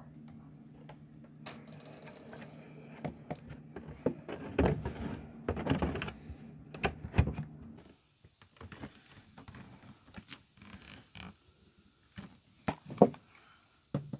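Handling noises of a wooden strip and a thin flashing plate being moved and fitted against a door frame: scattered knocks, taps and scrapes. A steady low hum underlies the first half and cuts off suddenly about eight seconds in, and a few sharp knocks come near the end.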